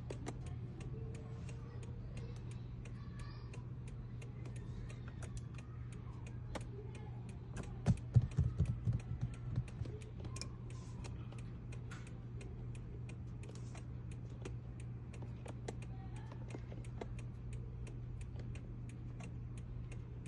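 Irregular light clicks of buttons being pressed over a steady low hum, with a short run of louder low thumps about eight seconds in.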